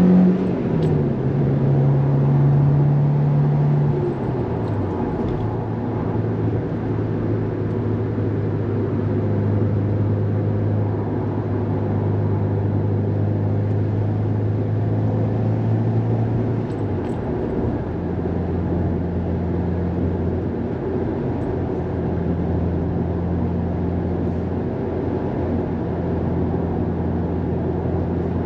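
Subaru WRX STI's turbocharged flat-four engine heard from inside the cabin while driving, with steady tyre and road noise. The engine note drops in pitch in steps, about a second in, again around four to five seconds in, and again around seventeen seconds in, holding steady in between.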